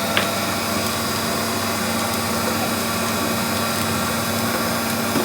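Electric mixer motor running steadily at one speed, with a constant hum, while mixing dry tart dough ingredients.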